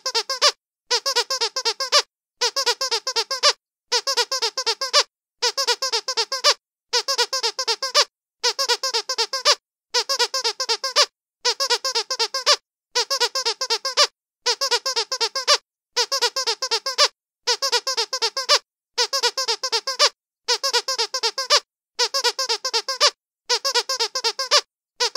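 Dog squeaky toy squeezed over and over in even bursts. Each burst is a rapid run of high squeaks lasting just over a second, and the bursts repeat about every second and a half with short silent gaps between them.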